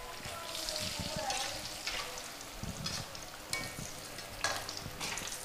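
Battered tempe pieces sizzling in hot oil in a wok. The sizzle swells in several surges as the pieces are stirred and turned with a spatula and a wire strainer.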